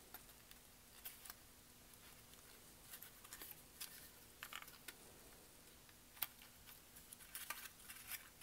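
Near silence with faint, scattered crinkles of 65 cardstock paper petals being pinched and held between fingers.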